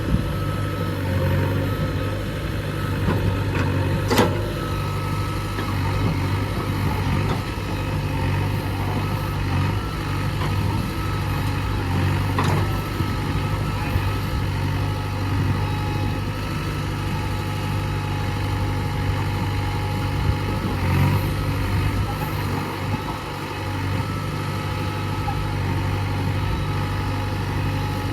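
JCB 3DX backhoe loader's diesel engine running steadily while digging, with a thin steady whine above the engine hum. There is a sharp knock about four seconds in and a lighter one near the middle.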